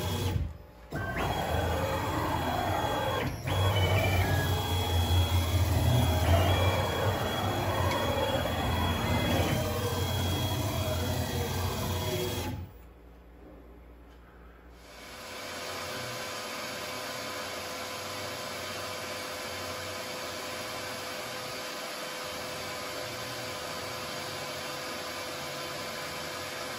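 Onefinity CNC machine running with its dust collection on: for about twelve seconds motor whines shift up and down in pitch over a low hum. After a short lull a shop vacuum rises over about a second and then runs with a steady hiss.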